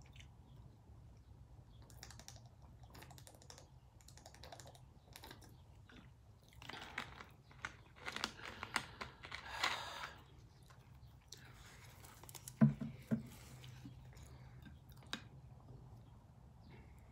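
Small crackling clicks from a plastic drink bottle being handled and its cap screwed back on, with soft chewing between; two sharp knocks on the table about two-thirds of the way through.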